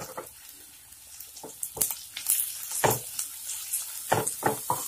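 Wooden spatula stirring sliced onions and green chillies in a non-stick kadai, knocking and scraping against the pan a handful of times, mostly in the second half, over a faint sizzle of the onions frying in oil.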